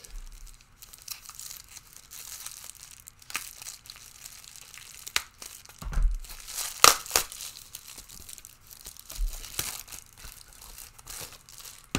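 Packaging being crinkled and torn open by hand to unwrap an item, in irregular rustles and sharp crackles, loudest about six to seven seconds in.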